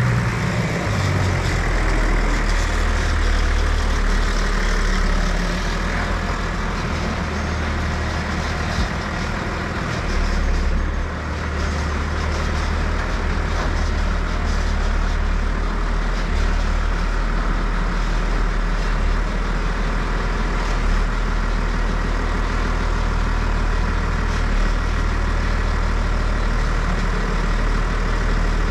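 John Deere 3650 tractor's diesel engine running steadily as the tractor is manoeuvred, with a brief small dip in level about ten seconds in.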